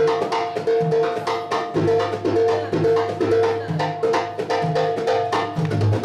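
Live Arabic-style dance music: a synthesizer keyboard holding a melody over hand drums, with a frame drum and goblet-style drums beating a steady repeating rhythm.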